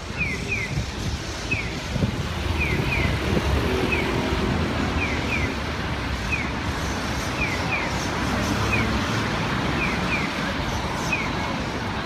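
Street traffic running steadily, with the repeating electronic bird-like chirps of a Japanese pedestrian crossing signal: short falling chirps, mostly in pairs, at an even pace.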